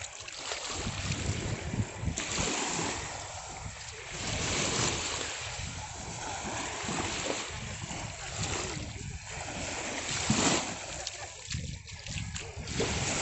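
Sea water splashing and sloshing in surges, with wind on the microphone; one sharper splash about ten seconds in.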